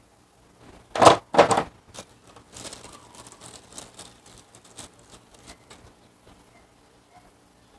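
Clear plastic parts bag crinkling and rustling as hands rummage in it for insulating sleeves for the terminal clips, after two short, louder sharp sounds about a second in.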